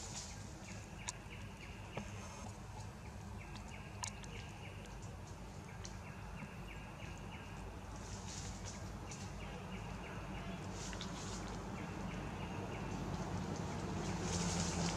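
Forest ambience: a small creature, bird or insect, repeats runs of quick short chirps every second or two, with brief high insect buzzes in between. A low rumble builds near the end.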